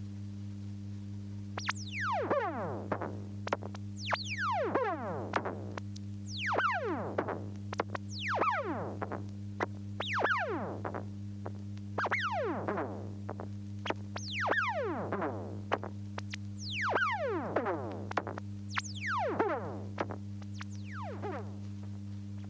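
Vintage synthesized electronic sound effect from a 1974 vinyl record: a series of quick falling pitch sweeps, about one every two seconds, from a high whistle down to a low tone. They play over a steady low hum.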